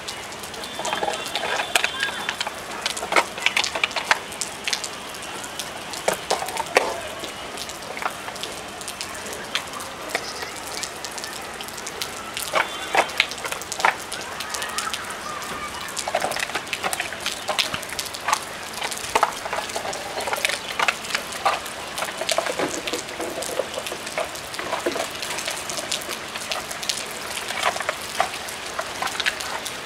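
Heavy rain falling on a concrete rooftop: a steady hiss dotted with many sharp drop clicks.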